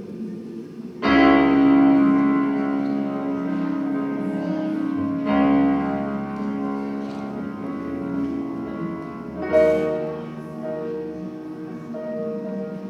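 Keyboard music: sustained chords, with a new chord struck about a second in, another near five seconds and another near nine and a half seconds.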